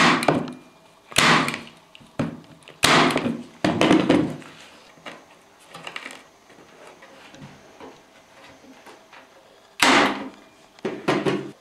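Corded electric staple gun firing staples through upholstery fabric into a wooden seat board, each shot a sharp knock. Several shots come in the first four seconds, then a pause, then another one or two near the end.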